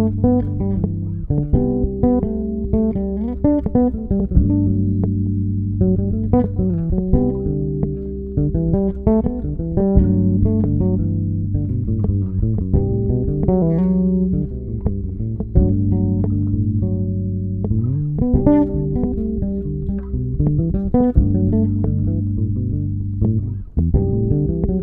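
Electric bass improvising plucked melodic lines over a looped backing of sustained Gmaj7 and Cmaj7 chords that alternate every few seconds. The lines are built only from the major pentatonic of each chord's fifth degree, such as D major pentatonic over G, so they stress the chords' sixths, major sevenths and ninths rather than their roots.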